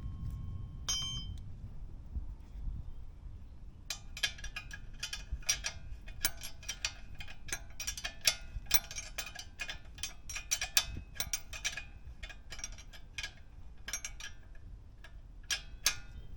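Irregular light metallic clinks and taps from hand tools working on metal suspension parts, a rapid uneven run of them starting about four seconds in, over a low background rumble.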